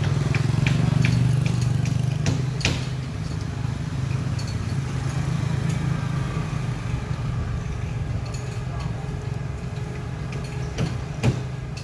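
A vehicle engine running steadily with a low hum, with a few sharp knocks or clanks, the loudest near the end.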